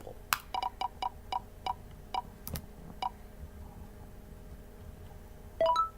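A spinning decision wheel ticking, the ticks coming several a second at first and slowing until it stops about three seconds in. Near the end comes a short rising three-note chime as the result lands.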